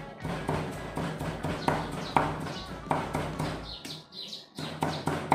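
A knife chopping and mincing prahok (fermented fish paste) on a wooden chopping block: a run of knocks, about two to three a second, with a short pause near the end. Birds chirp faintly in the background.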